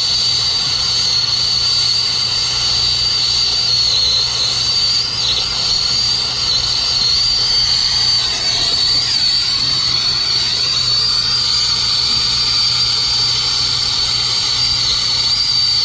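Brazing torch flame burning with a steady hiss while it heats a refrigerant line joint. A steady high-pitched tone runs over it, with a low hum beneath.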